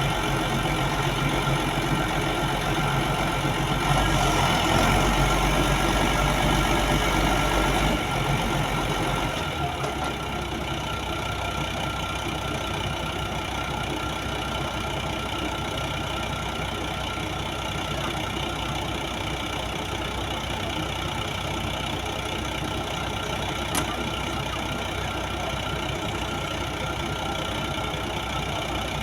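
A 55-ton crane's diesel engine running: louder and deeper under load for about the first nine seconds, then settling to a steady, quieter run. A single sharp click about 24 seconds in.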